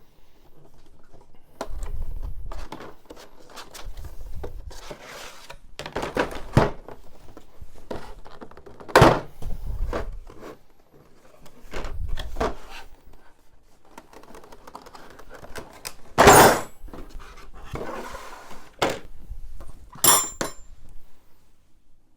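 Chrome steel combination wrenches being handled, with dull thunks and irregular knocks and clinks as they are moved and set down; three sharp clacks stand out, the last ringing briefly like metal on metal.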